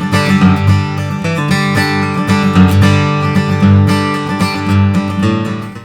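Steel-string acoustic guitar strummed and picked, chords ringing out, with a last chord left to sustain near the end.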